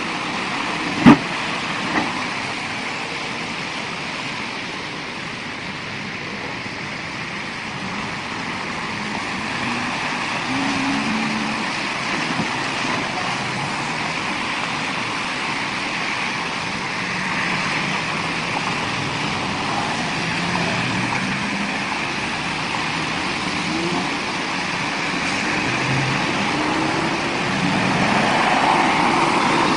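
City traffic on a wet street: cars and a bus driving past with engine hum and tyre noise through a water-filled pothole. A single sharp knock about a second in, and the traffic grows louder near the end as a bus passes close.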